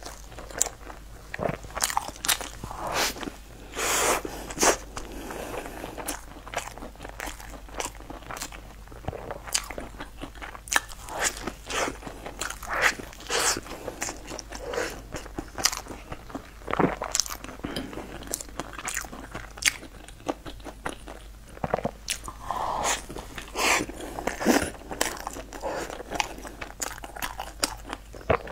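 Close-miked biting and chewing of a cheese-topped bread loaf with a toasted crust: irregular crisp crunches between steadier chewing.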